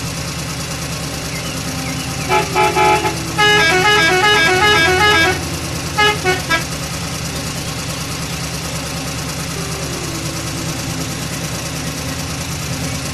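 Truck engine running steadily under a multi-note horn. The horn gives a few short toots, then plays a quick tune of rising and falling notes for about two seconds, then three more short toots.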